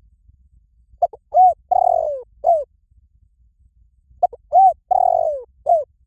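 Spotted dove cooing: two phrases about three seconds apart, each of a few short notes, a longer note that falls in pitch, and a short closing note.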